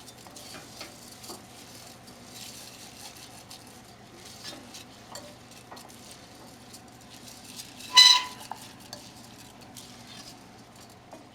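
Arborio rice toasting in butter, onion and bone marrow in a pan, sizzling softly as it is stirred, with small scrapes and clicks from the stirring. About eight seconds in comes one loud, brief ringing clink.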